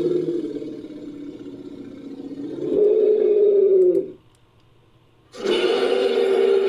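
Creature roars built from layered movie-monster sound effects. A held call tapers off, a louder call swells about three seconds in and cuts off a second later, and after a second of silence another loud call starts suddenly.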